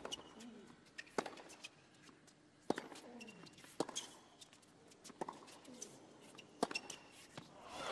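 Tennis rally on a hard court: racquets striking the ball six times, a sharp pock every second and a half or so, with shoes squeaking on the court surface between hits.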